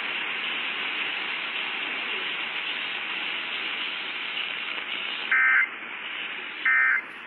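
Steady hiss from a portable Sparc HD Radio's speaker on an AM station, then, about five seconds in, two short bursts of Emergency Alert System data tones a little over a second apart: the end-of-message bursts that close an EAS test.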